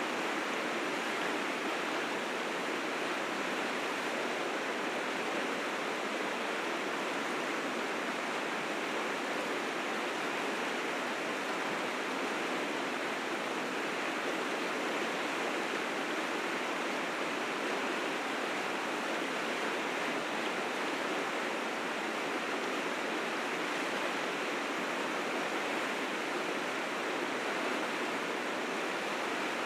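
River rapids rushing at high spring flow, swollen with snowmelt: a steady, dense rush of water with no let-up.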